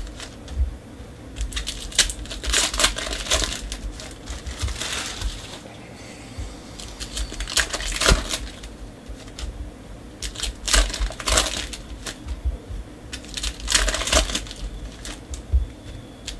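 Basketball trading-card pack wrappers crinkling and tearing as packs are ripped open by hand, in repeated short bursts, with the cards being handled between them.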